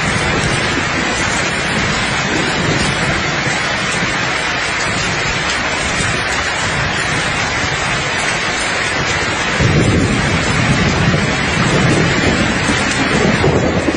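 Steady rain hiss. About ten seconds in, a low rumble of thunder swells up and keeps rolling under the rain.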